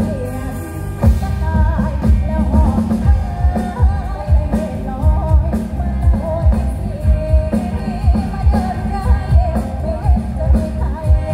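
Loud recorded music with a singing voice over a heavy, regular bass beat, played through large mobile speaker-rig cabinets.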